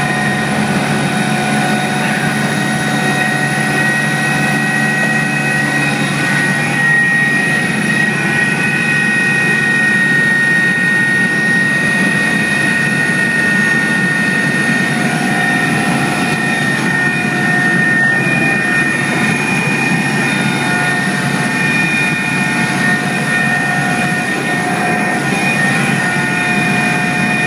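Helicopter in flight heard from inside the cabin: a loud, steady engine and rotor drone with several constant high-pitched whines over it.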